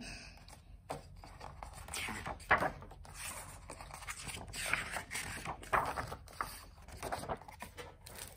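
Pages of a hardback picture book being handled and turned, with a few short paper rustles and scrapes.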